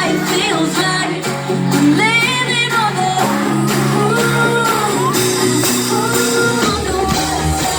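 A woman singing a pop ballad live, with long held notes that waver over guitar and band backing.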